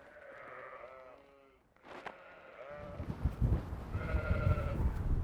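Sheep bleating several times, a few separate calls, with a low rumble of wind or handling noise in the second half.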